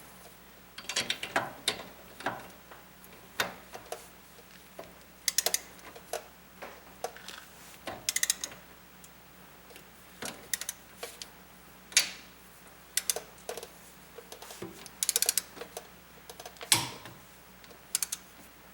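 Torque wrench ratcheting in short, irregular runs of sharp clicks as control-arm bolts are tightened toward a 30 setting, with single louder clicks here and there.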